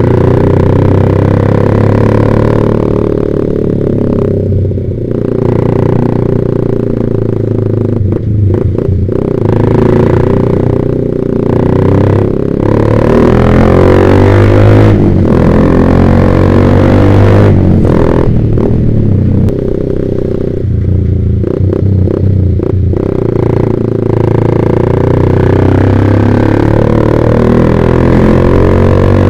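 Yamaha Vixion's single-cylinder four-stroke engine through a Proliner TR1 R aftermarket exhaust, revving up and down while riding, with the throttle closing briefly several times.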